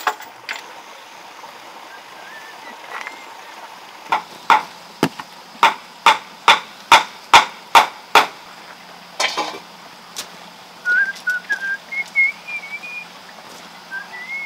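A run of about ten sharp knocks, roughly two a second for about four seconds, then a short rattling scrape. Faint bird chirps come before and after.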